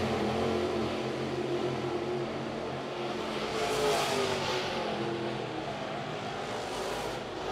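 Several dirt late model race cars with 604 crate V8 engines running at speed around a dirt oval, their overlapping engine notes rising and falling as they go round, with a louder swell about four seconds in.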